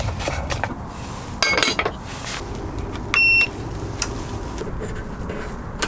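A single electronic appliance beep, about half a second long, a little past the middle, as the electric multi-grill running off a portable power station is switched on and starts drawing power. A short clatter of handling noise comes about a second before it.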